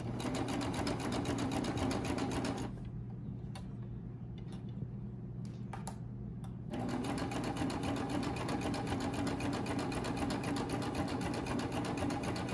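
Baby Lock Triumph serger stitching knit binding onto a fabric edge at a fast, even rate. About three seconds in the stitching drops away for about four seconds, leaving a few clicks, then it starts again and runs steadily.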